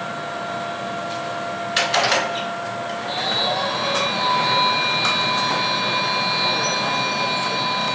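Steady roar of a glass studio's gas-fired furnace and blowers, with a thin whine over it. A few short knocks come about two seconds in. About a second later a higher whine starts and the roar grows a little louder.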